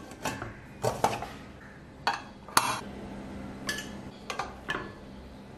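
Metal clinks and knocks from an aluminium pressure cooker's lid and whistle weight being handled: several short sharp clicks spread unevenly over a few seconds.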